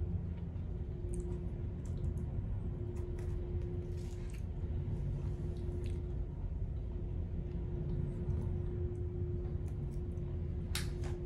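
Steady low drone of the ferry's engines inside the ship, with a constant hum running under it. A single sharp click near the end.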